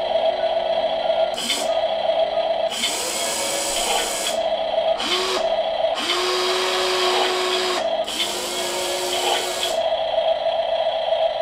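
Brushed electric motors of a MODSTER Digger 1:14 RC excavator whining as the boom and arm are moved. The whine comes in several separate runs, each a second or two long, some starting with a short rising tone, over a steady hum.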